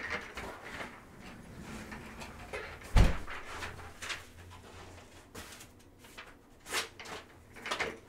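Handling noises on a desk or table: a single heavy thump about three seconds in, with faint shuffling and two short rustles near the end.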